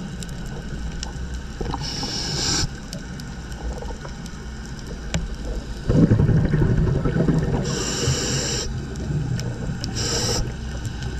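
Scuba diver breathing through a regulator underwater: three short hisses of inhalation and, about six seconds in, a loud burst of exhaled bubbles.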